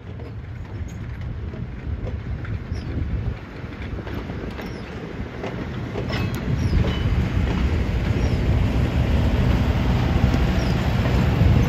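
Railroad passenger car and cabooses rolling past on the track: a steady wheel rumble with scattered clicks from the wheels over the rails, growing louder as the last cars draw near.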